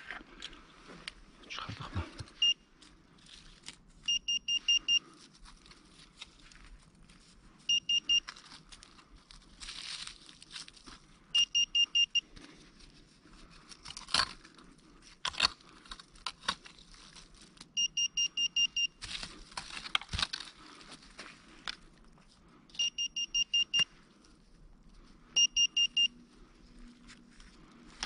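Handheld metal-detector pinpointer beeping in about seven short bursts of rapid high pulses as it is worked around a freshly dug hole, signalling metal close to its tip. Between the bursts come scraping, knocking and leaf rustling from digging in the soil.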